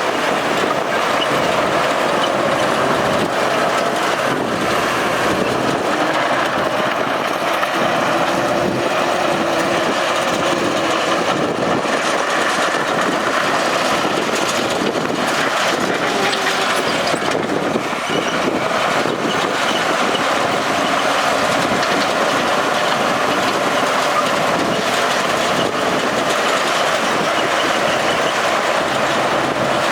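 Heavy diesel earthmoving machinery, a bulldozer and dump truck, running steadily.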